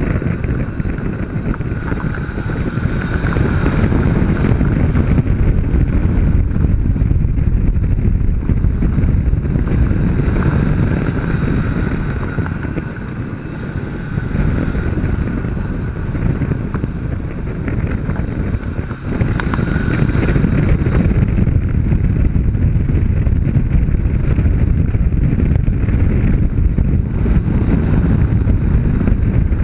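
Honda CB500 motorcycle engine pulling at track speed, mixed with heavy wind rush on the microphone. The sound eases off for a couple of seconds around the middle and dips briefly once more before picking up again.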